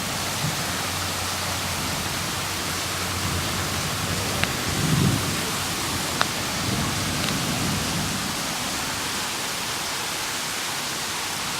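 Heavy rain falling steadily, with a few sharp drip clicks and a brief low rumble about five seconds in.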